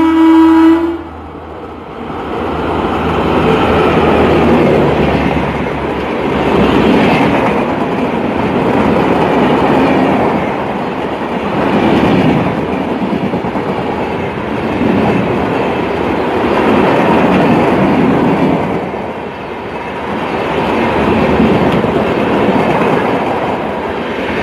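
A WAP4 electric locomotive's horn sounds and cuts off about a second in. Then the express train's passenger coaches pass close by at speed, their wheels clattering over the rail joints in a loud, continuous rumble that swells and fades every few seconds.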